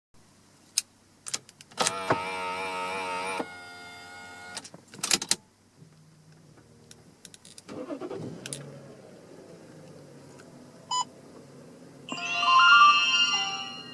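Toyota Aristo S300's 2JZ-GE inline-six being started: a few clicks, a wavering whine from about two seconds in, then the engine fires a little past the middle and settles into a steady idle through the stock exhaust. Near the end there is a loud sound that rises in pitch.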